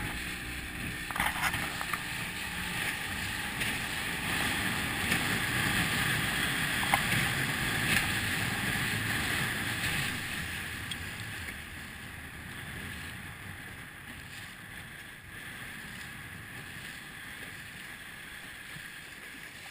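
Water rushing and splashing along the hull of a small sailing dinghy under way, louder for the first half and easing off after about ten seconds. A few short knocks stand out about a second in and again around seven and eight seconds.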